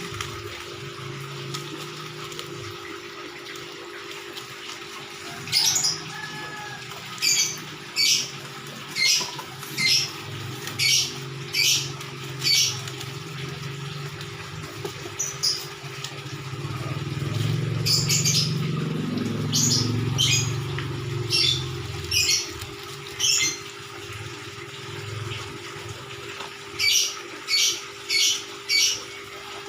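Short, high-pitched animal calls repeated about once a second in several runs, over a steady low hum.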